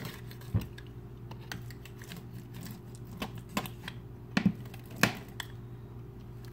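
Pizza cutter wheel cutting scone dough in a metal sheet pan, giving a few scattered sharp clicks and knocks as it meets and is lifted from the pan. A steady low hum runs underneath.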